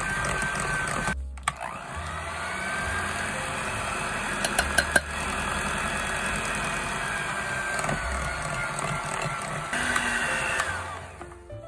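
Electric hand mixer running, its beaters whipping egg-yolk buttercream in a glass bowl with a steady motor whine. The sound breaks off briefly about a second in, a few sharp clicks come around five seconds, and the mixer stops near the end.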